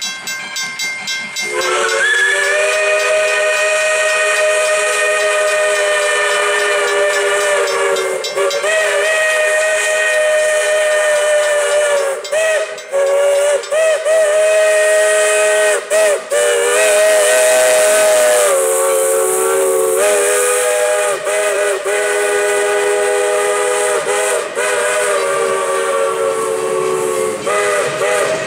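Chime steam whistle of 1907 Baldwin 0-6-0 No. 58 sounding the grade-crossing signal: two long blasts, a shorter one, then a long final blast. Its several tones sound together and waver in pitch in the middle blasts as the cord is worked.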